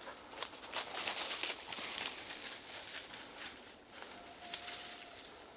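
Dry leaf litter and twigs crackling and rustling in the undergrowth, thickest in the first couple of seconds, with a couple of sharp snaps near the end. A faint steady whistle-like tone sounds for about a second in the second half.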